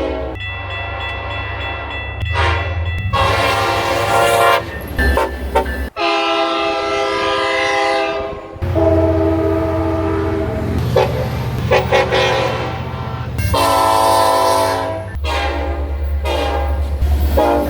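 Train horns sounding a series of long and short blasts, each a sustained multi-tone chord, over a steady low rumble. The horn sound changes abruptly about six seconds in and again near nine seconds, as one recording gives way to the next.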